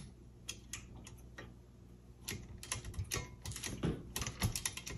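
Light mechanical clicks from a 1956 Underwood Universal portable typewriter as an unidentified control on the end of the machine is worked: a few scattered clicks, then a quicker run of them from about halfway.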